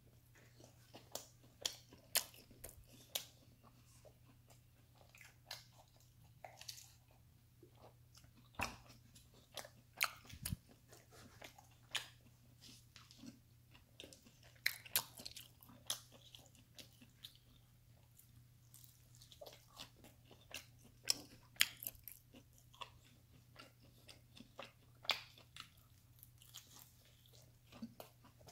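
Close-up eating sounds: a person biting into and chewing a slice of pepperoni pizza, with irregular sharp clicks and mouth noises.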